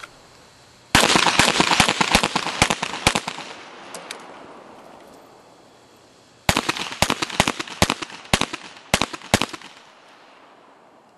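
Handgun firing two rapid strings of shots: the first begins about a second in, then after a pause of about three seconds a second string follows, ending near the end. Each string is a quick run of sharp cracks, with echo trailing away after the first.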